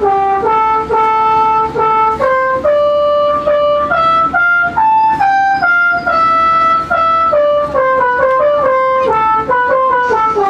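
Bus telolet horn, a multi-trumpet air horn, playing a tune of held notes that step up and down without pause.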